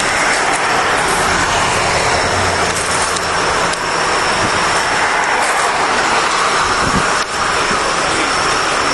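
Loud, steady roar of passing vehicle traffic that swells and eases over several seconds.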